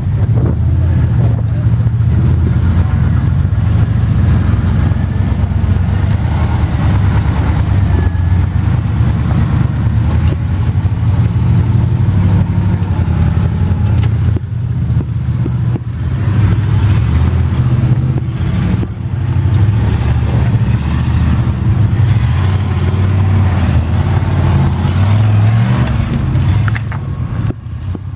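Off-road rock crawler buggies' engines running as the rigs climb slickrock ledges: a loud, low engine drone that rises and falls as the throttle is worked.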